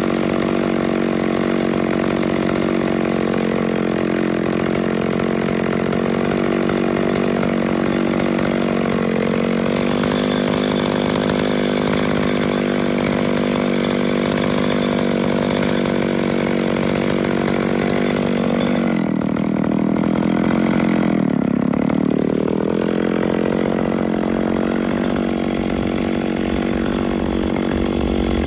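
Two-stroke McCulloch chainsaw idling steadily while resting on a log, not cutting. Its engine note briefly sags and recovers about two-thirds of the way through.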